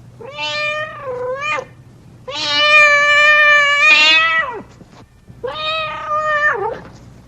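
Hungry domestic cat meowing three times: a wavering call, then a long, loud drawn-out meow, then a shorter one that falls in pitch at the end.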